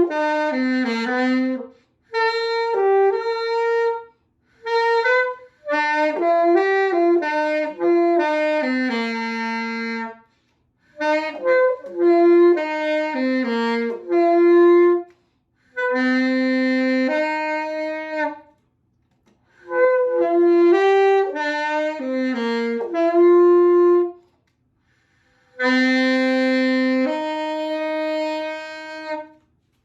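A solo saxophone playing a slow melody in phrases, with short pauses between them. It ends on a long held note.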